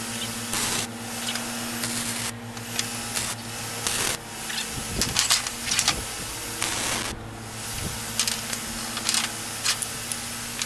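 Electric welder arc crackling in a series of short welds on a steel-tube frame, each lasting a fraction of a second, with a steady hum underneath.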